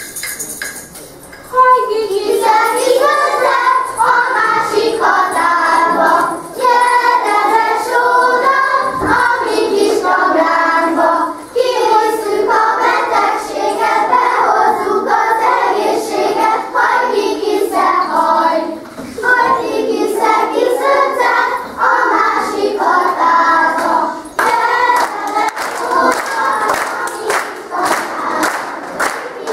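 A group of young children singing a Hungarian folk song together, starting about a second and a half in, in phrases with short breaths between them.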